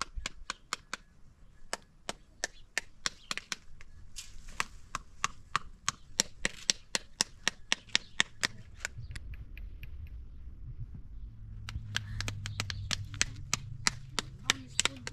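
A rapid, irregular series of sharp taps or knocks, several a second, with a low steady hum coming in about two-thirds of the way through.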